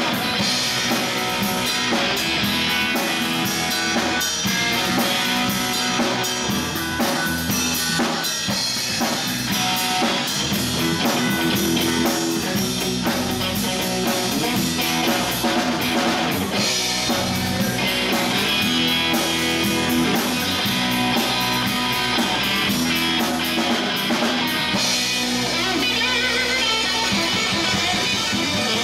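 Live rock band playing an instrumental passage: amplified electric guitar over electric bass and a drum kit.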